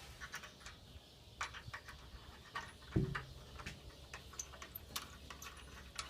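Light clicks and small knocks of a carriage bolt, washer and nut being fitted to a wooden footstool leg by hand, with one louder thump about three seconds in.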